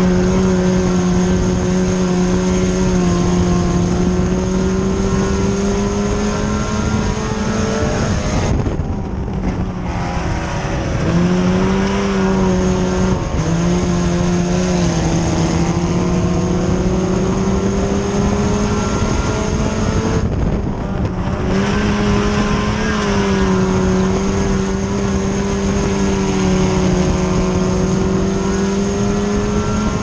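Four-cylinder engine of an IMCA Sport Compact dirt-track race car, heard from inside the cabin, running hard at high revs with its pitch slowly climbing. Twice, about a third of the way through and again about two thirds through, the engine note drops away briefly as the driver lifts off, then picks back up under throttle.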